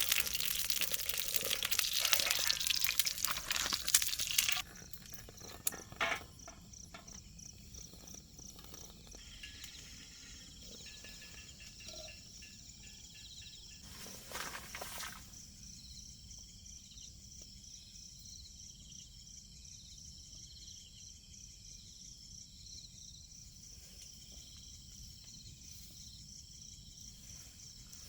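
Food sizzling in a hot pan for the first four and a half seconds, then it cuts off suddenly to steady, rhythmic insect chirping. A few faint knocks come around six seconds in, and a short rustle about halfway through.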